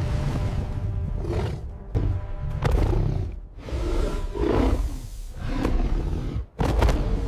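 Dramatic film-score music with a series of animal roars laid over it, coming in several separate surges, the last one loud near the end.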